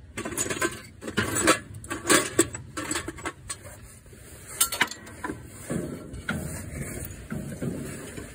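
Metal clinking and clicking as a bolt and hand tools are handled against a tractor's dash and steering column. There is a quick run of sharp clicks and taps in the first few seconds, one louder click a little past halfway, then softer, scattered knocks.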